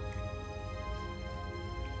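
Background music of steady held notes.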